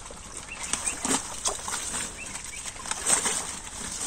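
Water splashing and sloshing with the rustle of water-hyacinth leaves as hands pull the plants apart and grope in shallow water for fish. It comes as a run of short, uneven splashes and rustles.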